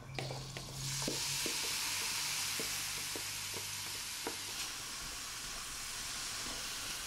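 Chopped food tipped into a hot frying pan, sizzling steadily from about a second in, with light taps of a spatula scraping the bowl and stirring the pan.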